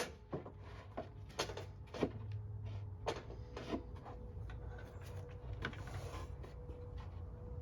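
Light knocks and clicks of wooden workpieces and tools being handled, most of them in the first few seconds, over a low steady hum.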